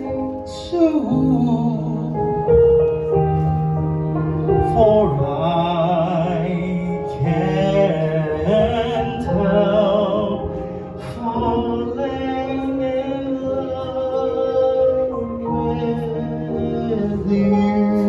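A woman singing a slow song live, with wavering held notes, over instrumental accompaniment.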